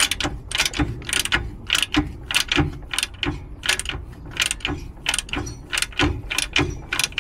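Ratchet clicking about three times a second as a diesel truck engine is turned over by hand with a cranking tool at the flywheel, rotating the crank to bring cylinders 2 and 5 up for valve-clearance setting.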